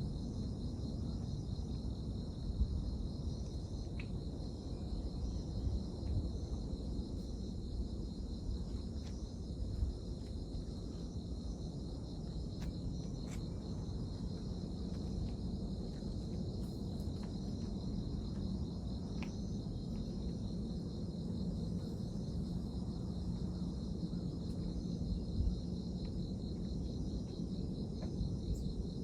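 Crickets or similar insects chirping without pause in a high, finely pulsing drone, over a steady low rumble.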